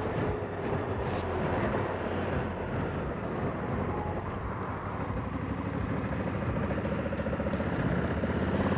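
Honda CRF1100L Africa Twin's parallel-twin engine running at road speed under steady wind and road noise, growing a little louder toward the end.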